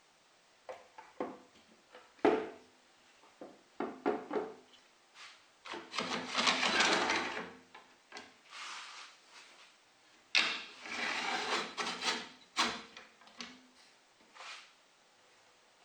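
Wooden pieces handled and set down with a series of knocks and clicks, broken by two longer rubbing or scraping passes of a second or two each, about six seconds in and again about ten seconds in.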